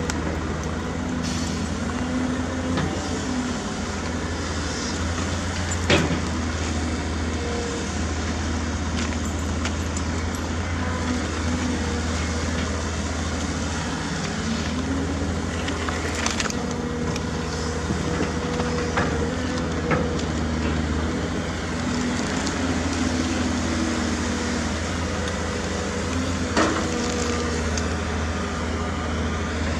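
Diesel engines of heavy earthmoving machinery running steadily, their pitch shifting slightly now and then. Three sharp knocks come about ten seconds apart.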